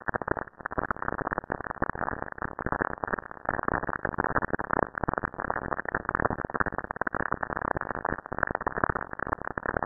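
Dense crackling, hissing static that swells and fades irregularly: radio emissions from Saturn recorded by the Cassini spacecraft and played back as sound.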